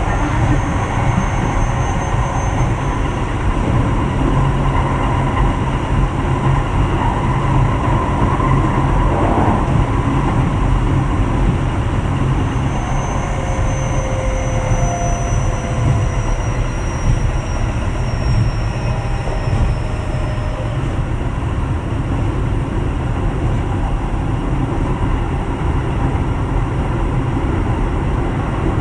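Running sound of a Keio 7000 series electric train with a Hitachi IGBT inverter, heard on board at speed: a steady heavy rumble of wheels on rail. Faint high and mid tones slowly fall in pitch around the middle.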